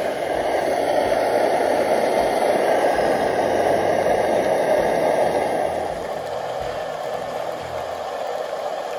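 Liquid-fuel camp stove burning steadily under a pot of beef, a loud, even rushing sound. About six seconds in it gives way to a softer, steady hiss of rain.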